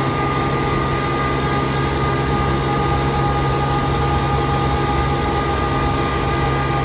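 RK25 compact tractor's engine running at a steady speed while driving, with a steady whine over the engine note.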